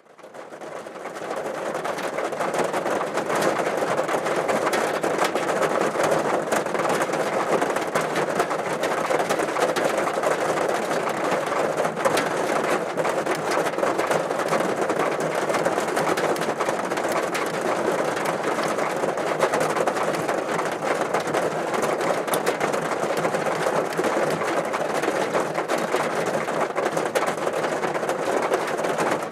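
Heavy typhoon rain pattering steadily on a car's roof, a dense unbroken hiss of drops that fades up over the first second or two.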